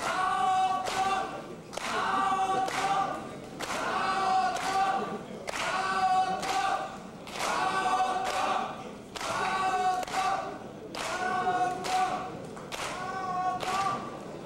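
Boxing crowd chanting in unison: a short chanted call repeated steadily about once a second, the calls falling in pairs every two seconds.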